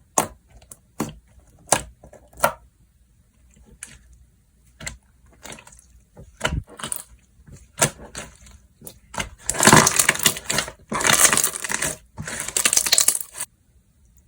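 Slime being played with by hand: a few sharp pops and clicks at the start, scattered smaller clicks, then three longer stretches of dense crackling in the last few seconds.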